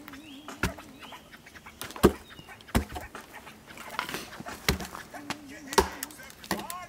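Sharp knocks of dry wood striking wood, about six at an irregular pace: a dry, split pole being struck down on a log to split it.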